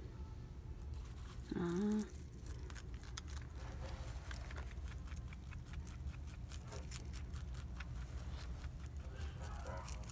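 Pet rabbit chewing a sprig of fresh leafy greens: fast, irregular runs of small crisp crunching clicks. A short pitched voice-like sound comes about a second and a half in and is the loudest thing.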